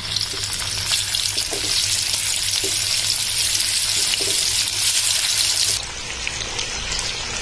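Slices of battered colocasia-leaf roll deep-frying in hot oil in a kadhai: a steady, loud sizzle that turns quieter and duller about six seconds in.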